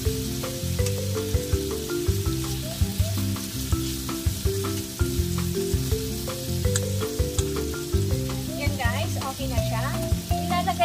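Sliced pork and onion sizzling in a frying pan as they are stirred with chopsticks, under background music with a steady beat.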